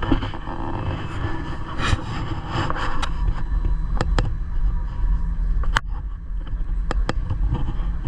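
Gornergrat rack railway train running: a steady low rumble with a handful of sharp clicks, some in quick pairs.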